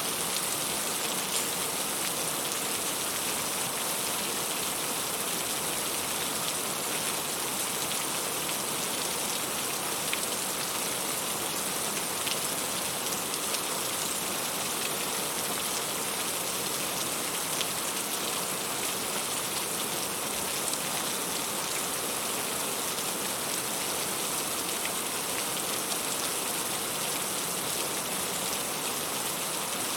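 Heavy rain falling steadily as an even hiss, with scattered sharper drop ticks of raindrops striking nearby surfaces.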